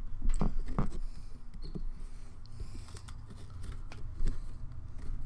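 A knife sawing and scraping at a pumpkin's rind in irregular small scratches and clicks, over a low steady rumble. The blade is being worked with its wrong side, so it scrapes rather than cuts.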